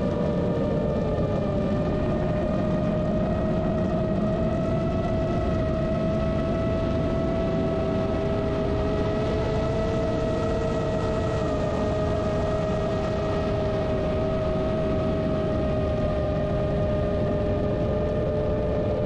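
Motors and propellers of a GEPRC Vapor D6 FPV quadcopter humming in steady cruise, several whining tones drifting slowly up and down in pitch over a rush of wind and prop wash.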